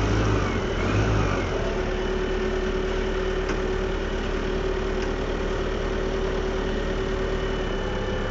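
Heavy-equipment diesel engine running steadily at idle, with a constant whine over the engine note; the low rumble is louder for about the first second and then settles.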